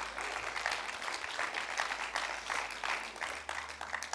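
Congregation applauding: many overlapping hand claps, irregular and steady in level.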